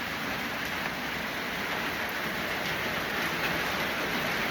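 Steady rain falling: an even, continuous hiss of rain on surfaces.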